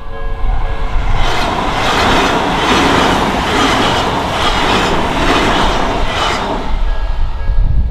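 Odakyu Odawara Line train passing over a level crossing, its wheels clattering in a regular beat over the rail joints for about six seconds. The crossing's warning bell rings at the start and is heard again as the train's noise fades near the end.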